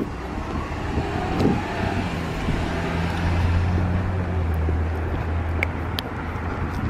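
A motor vehicle's engine running on the road close by: a steady low hum that builds a couple of seconds in and fades near the end, over general traffic and outdoor noise.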